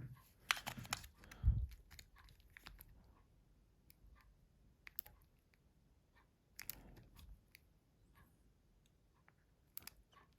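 Small plastic clicks and taps of a Nokia C2-06 mobile phone and a battery being handled and fitted. A quick cluster of clicks with a knock comes in the first second and a half, then scattered single clicks.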